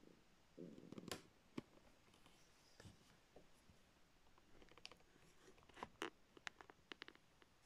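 Near silence in a small room, broken by faint clicks and light handling knocks, a few about a second in and a quicker cluster of small clicks around five to seven seconds in.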